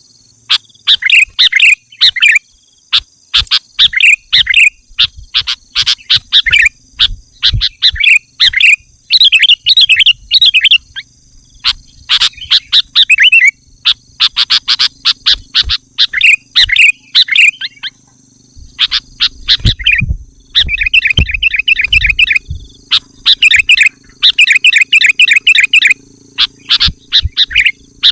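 Sooty-headed bulbul (kutilang) singing loudly: phrase after phrase of quick chirping notes with short gaps between them.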